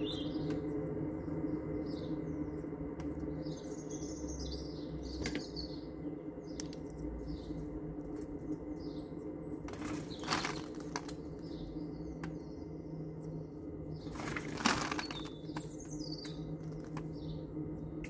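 Quaker parrot bathing in a metal water bowl, beating its wings in the water in two short splashing bursts, about ten seconds in and again about fourteen seconds in, the second louder. Small birds chirp in short high notes throughout.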